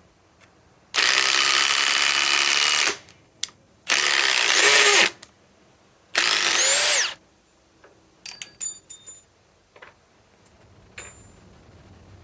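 Milwaukee M18 Fuel Gen 4 impact driver, powered by a Kobalt battery, running in three bursts: a long one of about two seconds, then two shorter ones of about a second each, with the motor pitch rising and falling. A few light clicks follow.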